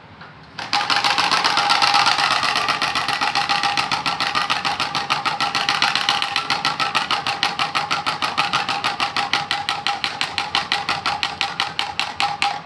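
Bicycle spoke noisemaker: a bank card set in a cut plastic bottle flicking against the turning rear-wheel spokes, giving a rapid engine-like rattle meant to mimic a motorbike exhaust. It starts about half a second in and gradually slows toward the end.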